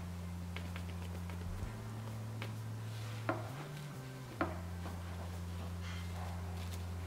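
Hulled hemp seeds scattering and ticking onto a metal baking tray as they are sprinkled by hand around a bread dough, with two sharper taps a little past three and four seconds in. Under it runs a low steady hum that shifts pitch every second or two.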